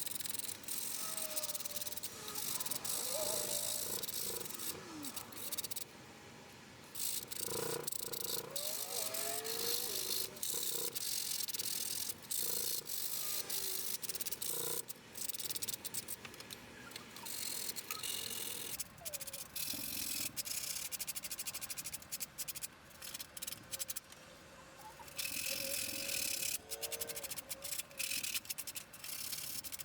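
Hand sanding wood with rolled 100-grit sandpaper: quick, scratchy rubbing strokes that stop briefly a couple of times, as the intarsia pieces are contoured to shape.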